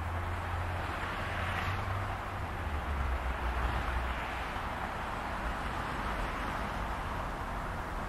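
BNSF diesel freight locomotives approaching from a distance: a low, steady engine drone that drops a little in pitch about three seconds in, under an even hiss.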